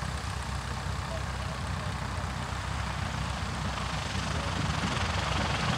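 Radial piston aircraft engine running with a deep, rough rumble, growing louder toward the end.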